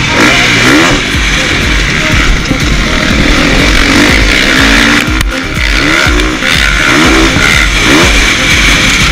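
Single-cylinder four-stroke engine of a KTM 450 SXF motocross bike revving up and dropping back over and over as the bike accelerates along the track, heard from the rider's helmet. Background music plays over it.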